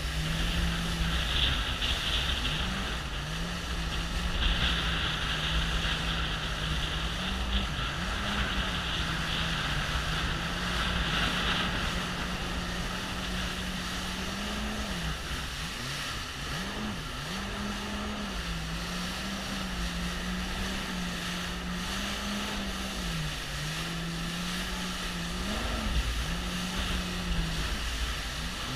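Jet ski engine running at speed, its pitch wavering and now and then dipping sharply and recovering as the craft rides over the water. Rushing water and wind noise go with it, with a hiss that is stronger in the first half.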